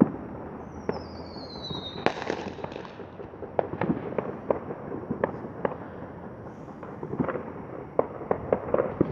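Fireworks and firecrackers popping and banging irregularly, some distant and some closer. About a second in, a whistling firework falls in pitch and ends in a louder bang.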